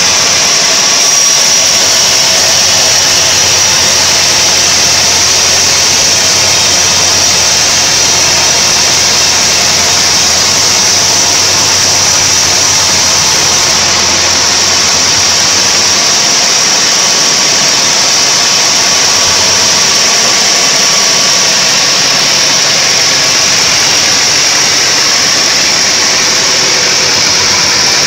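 Homemade band sawmill running steadily while sawing a large mahogany log into boards: a loud, steady high-pitched hiss of the band blade with a low machine hum underneath.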